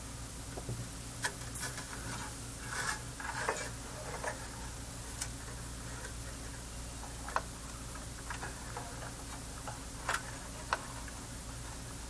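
Irregular small clicks, taps and short scrapes of hand tools working on metal parts inside an amplifier, over a steady low hum.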